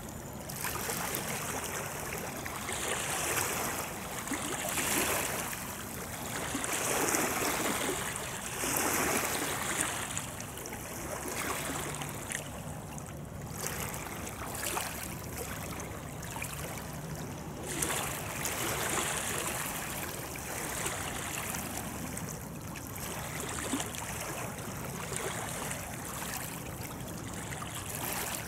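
River water lapping and splashing in small waves, swelling and fading every two seconds or so.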